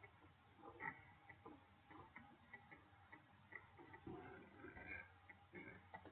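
Near silence: faint room tone with light, irregularly spaced ticks.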